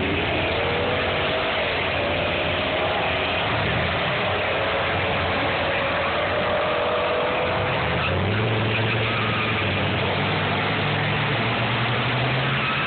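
Turbocharged 408 V8 of a 1995 pickup with an 88 mm turbo, idling with a whine over the first several seconds. From about eight seconds in it is held at raised revs on the brakes for a burnout, rising a step more near the end as the rear tyres smoke.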